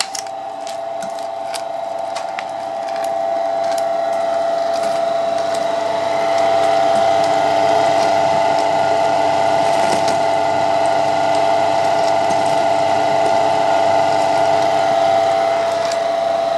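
Flake ice machine running: its Bitzer Type 1 open-drive refrigeration compressor, driven by a 750 W single-phase electric motor, together with the ice drum's drive, gives a steady whining hum. The hum grows louder about three to six seconds in.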